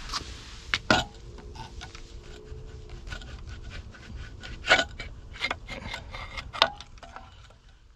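Carbon-caked baffle core of a two-stroke motorcycle muffler being pulled out with pliers: metal rubbing and scraping inside the muffler shell, broken by several sharp clicks and knocks.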